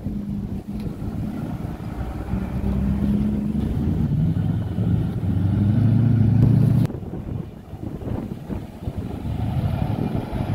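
Classic cars driving slowly past one after another, their engines running. One engine grows louder as it passes, then the sound cuts off suddenly about seven seconds in and gives way to a quieter engine rumble.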